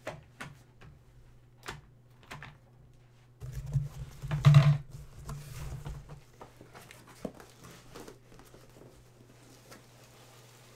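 Cardboard box full of foam packing peanuts being handled and shifted, with scattered rustles and light knocks. A louder rustling burst comes about three and a half seconds in and lasts around two seconds.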